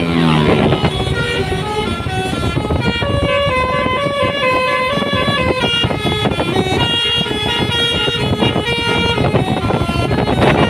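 Bus basuri (multi-tone 'telolet') horn playing a tune of short, stepped notes over a steady rumble.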